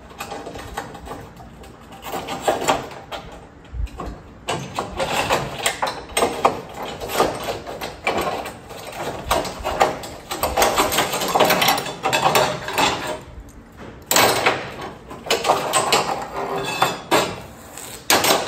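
Electric arc welding on steel: a crackling, sizzling arc in several runs with short breaks between them, starting about two seconds in.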